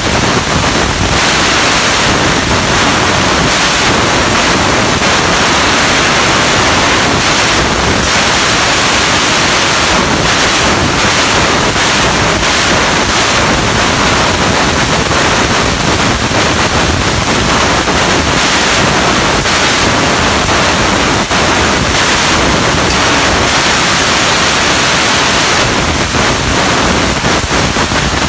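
Tube fiber laser cutting 1.5-inch square tubing: a loud, steady rushing hiss from the cutting head's assist-gas jet and the running machine.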